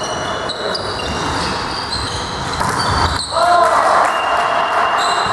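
Indoor volleyball play: players' shoes squeaking on the court floor amid voices echoing in a sports hall. A louder shout or call rises a little past halfway.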